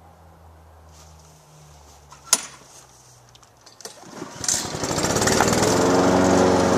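Walk-behind gasoline lawn mower being started: a sharp click about two seconds in, then a few sputters as it is pulled, and the engine catches and runs steadily from about halfway through.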